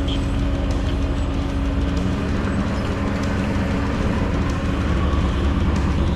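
A 4x4 vehicle driving on a rough dirt track: a steady engine hum over a low rumble.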